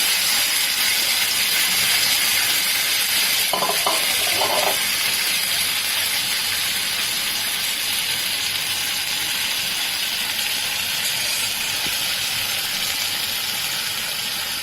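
A sizzler plate sizzling as sauce and food hit the hot metal, a steady hiss that slowly dies down.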